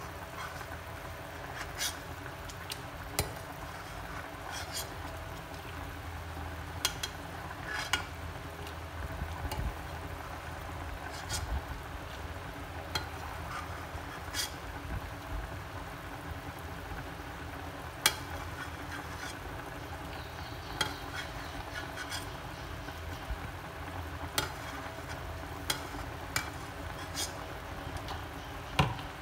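Pot of chicken at a rolling boil, bubbling steadily, while a metal ladle skims off the scum so the broth will come out clear; the ladle gives sharp clinks every second or two.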